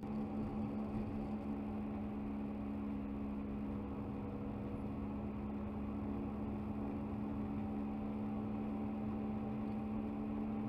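Steady road and engine noise of a moving car, heard from inside the cabin, with a constant low drone under an even hiss.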